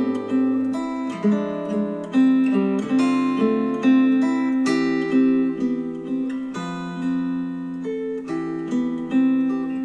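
Instrumental acoustic guitar music, plucked and strummed chords with no singing, played back through a pair of Klipsch The Fives powered speakers over Bluetooth with a vocal EQ preset.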